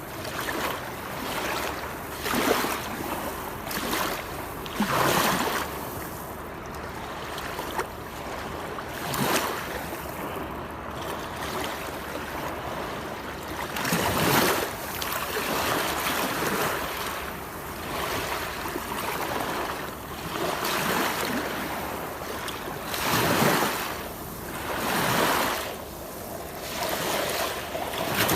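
Waterfall: a constant rush of falling water, with uneven louder surges of splashing every two to three seconds.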